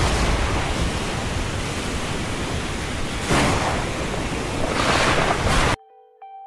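Steady rushing storm noise, most likely wind and rain, that swells louder twice and then cuts off suddenly near the end. A few faint chime-like notes start just after.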